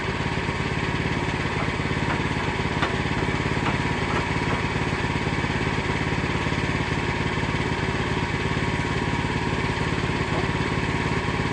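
Sawmill's engine running steadily at an even speed, with a fast regular firing beat.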